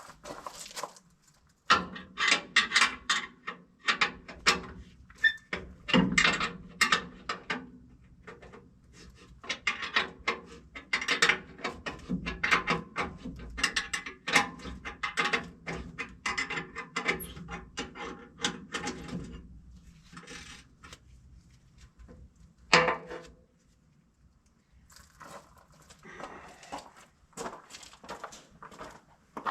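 Rapid clicking and clanking of hand tools on a combine's straw chopper as the nuts holding the chopper knives are loosened and the knives worked out. One sharp knock comes about three-quarters of the way through.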